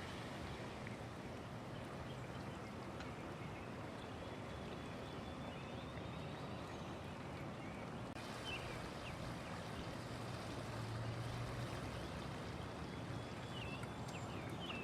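Floodwater flowing and swirling as a steady, even rush.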